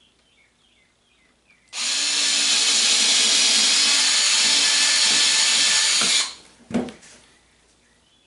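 Cordless drill-driver running steadily for about four and a half seconds, driving a small machine screw through a brush strip into a dust shroud, then stopping abruptly. About half a second later comes a single short knock.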